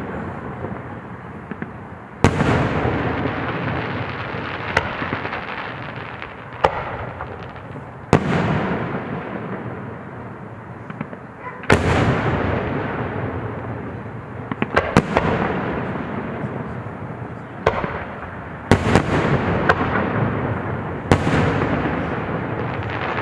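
Aerial fireworks display: a series of sharp shell bursts every couple of seconds, each followed by a long rumbling, crackling tail as the booms echo away.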